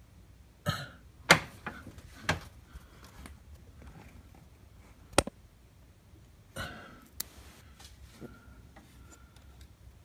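Scattered sharp clicks and knocks of hands and a phone moving among engine-bay parts, the loudest about a second in and another about five seconds in. Two short breathy noises come near the start and about two-thirds of the way through.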